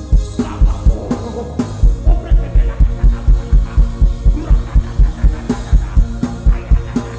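Gospel worship band music, driven by a drum kit's kick drum and bass. A few scattered hits over a held bass note give way, about two seconds in, to a fast, steady beat.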